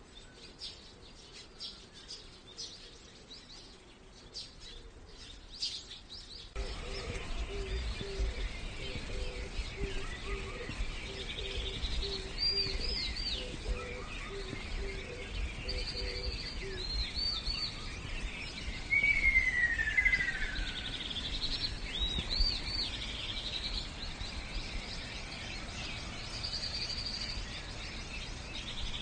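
Outdoor birdsong: several birds giving repeated high chirps and short trills, with one clear falling whistle about twenty seconds in, over a steady outdoor hiss and low rumble. About six seconds in the background suddenly grows louder, and a low repeated note runs until about seventeen seconds.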